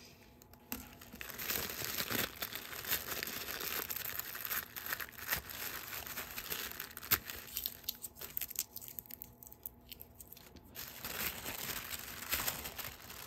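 Tissue paper rustling and crinkling as hands unfold and pull it apart, with a quieter stretch about two-thirds of the way through.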